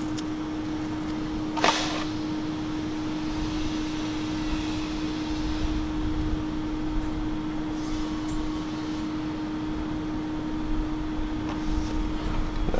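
A steady machine hum with one even tone, and a single short click a couple of seconds in.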